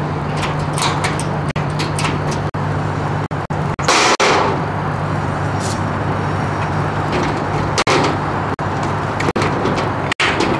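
A boat's engine running steadily as a low hum under a broad rushing noise, with short bursts of hiss, the loudest about four seconds in.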